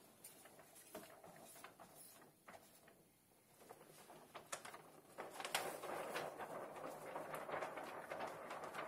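A large sheet of DL15 window tint film crinkling and crackling as it is handled, lifted off the floor and rolled back up by hand. Scattered light crinkles at first, turning into denser, louder crackling about halfway through.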